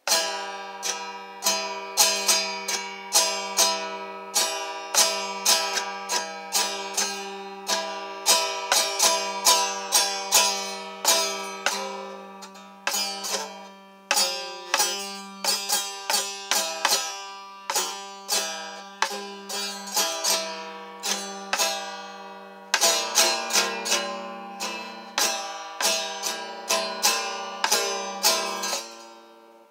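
Acoustic guitar being strummed: a chord struck about once or twice a second and left ringing between strokes, with the chord changing a few times. The playing stops just before the end.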